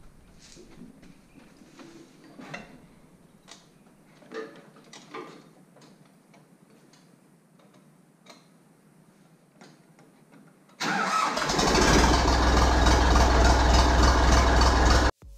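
Faint clicks and knocks at the controls, then about eleven seconds in the Massey Ferguson 255 tractor's diesel engine starts and runs loud. The engine sound cuts off suddenly near the end.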